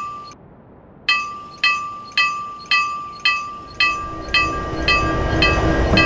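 Railroad crossing warning bell ringing in even strokes, about two a second, starting about a second in after a short pause. From about four seconds in, the low rumble of an approaching train builds beneath it.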